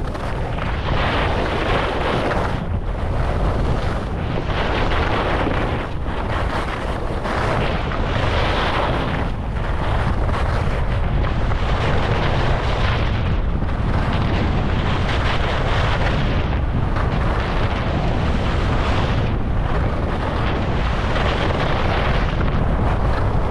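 Wind buffeting the microphone with a heavy steady rumble, over the hiss and scrape of skis on groomed snow, which swells and fades every second or so as the skier turns.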